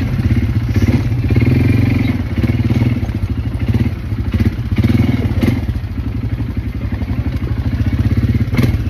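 ATV (quad bike) engine running while riding, its level swelling and dropping with the throttle, with a few sharp knocks and rattles as it goes over the rough track.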